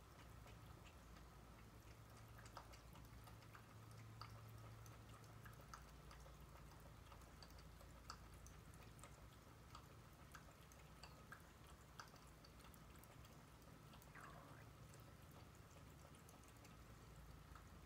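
Cat lapping water from a tall tumbler: faint, irregular little wet clicks and drips.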